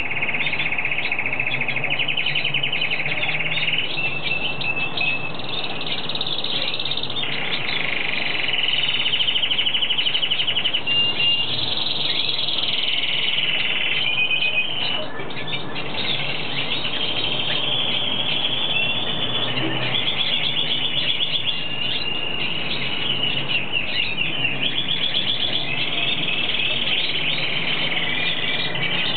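Hooded siskin singing: a long, nearly unbroken run of high, rapid twittering trills and chirps.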